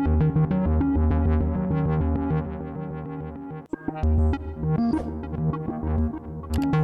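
Background music: an electronic synthesizer and keyboard track with a steady bass line.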